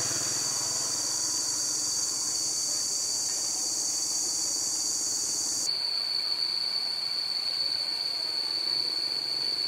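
Insects buzzing steadily in one high, even drone with a hiss above it. A bit past halfway the sound changes abruptly: the highest hiss drops away and the drone goes on.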